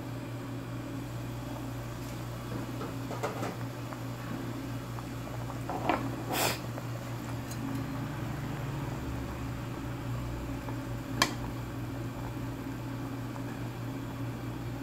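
Water boiling in a pot with a piece of beef in it, over a steady low hum. The glass pot lid clinks as it is lifted off about six seconds in, and a sharp metal click comes about eleven seconds in.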